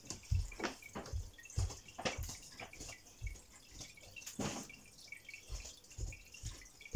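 Soft footsteps and irregular light knocks and clicks of someone moving about a room, with a sharper knock about four and a half seconds in.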